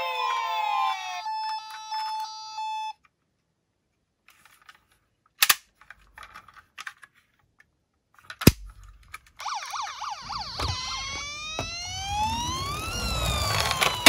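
Toy ambulance's electronic siren wailing, sweeping up and down in pitch, from about two-thirds of the way in. Before it, electronic tones stop about three seconds in, and there are a few sharp clicks from handling the toy.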